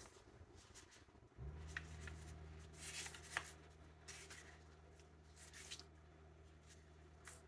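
Faint clicks and rustles of small plastic model-kit parts being handled on a workbench. A low steady hum starts about a second and a half in.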